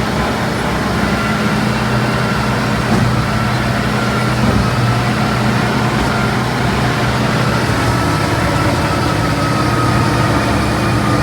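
Caterpillar D7 bulldozer's diesel engine running steadily under load, a deep, even drone with a thin high whine over it that sinks slightly in pitch.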